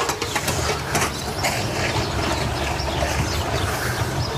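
Small moped engine running with a rapid low putter.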